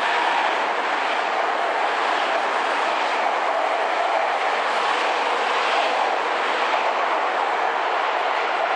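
Stainless-steel electric commuter train running past at close range: a steady noise of wheels on the rails.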